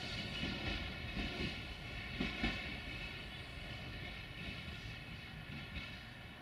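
Freight train rolling away, its wagons' wheels knocking over rail joints with a steady hum underneath, the sound fading as it goes.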